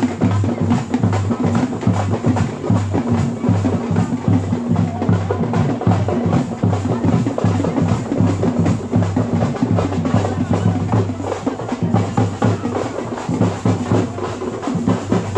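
Music with a busy drum beat over a strong bass line.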